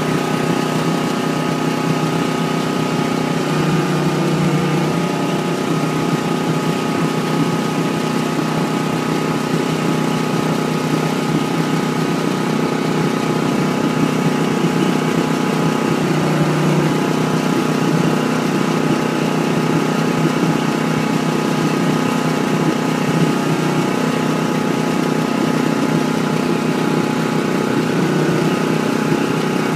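Heavy truck's diesel engine running steadily at low speed, swelling slightly twice, about four seconds in and again near the middle.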